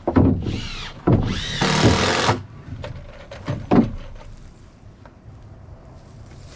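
Power drill driving screws into wood in two short runs in the first couple of seconds, its pitch rising and falling, followed by a single knock a little later.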